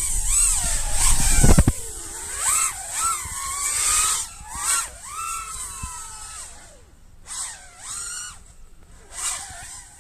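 FPV quadcopter's brushless motors whining, the pitch swooping up and down again and again with the throttle and fading in and out as the drone flies near and away. Heavy wind rumble on the microphone in the first couple of seconds.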